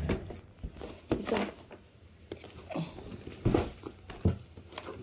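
Handling noise: irregular knocks and rustles of boxes, packaging and a handbag being moved close to the microphone.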